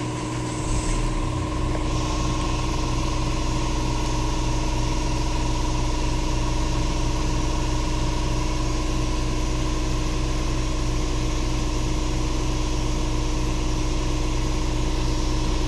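Hyundai Grand Starex engine starting about a second in, then idling steadily.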